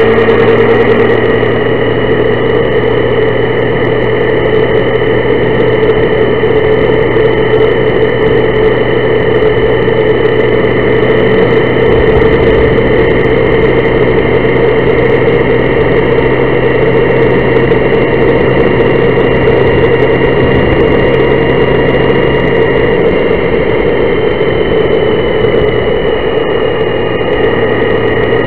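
Honda Gold Wing motorcycle's horizontally opposed engine running at a steady cruising speed, mixed with wind and road noise, heard from a bike-mounted camera. The drone stays even throughout, and a low hum drops away about three quarters of the way in.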